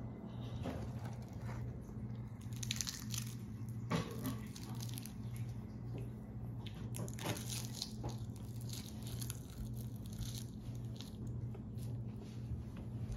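Crisp dried seaweed sheets crackling and crunching in irregular bursts as they are handled and bitten, over a steady low hum.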